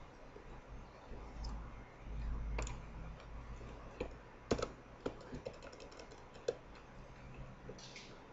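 Faint computer keyboard keystrokes and mouse clicks, a few scattered taps with a quick run of light clicks in the middle, and a low rumble about two seconds in.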